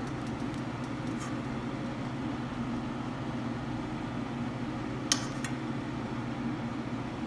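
Steady low kitchen hum, with a few faint light clicks and a sharper click about five seconds in from a spoon touching a dish as potato stuffing is spooned into the samosa.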